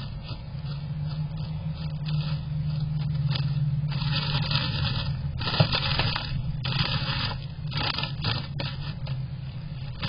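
A white-breasted nuthatch scratching and rustling in dry bark-strip nest lining inside a wooden nest box, in repeated rough bursts, over a steady low hum.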